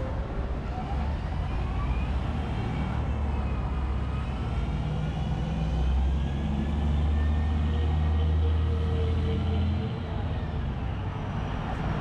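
Street traffic: a passing motor vehicle's engine rumble builds, is loudest from about six to ten seconds in, then falls away, with faint whining tones sliding up and down above it.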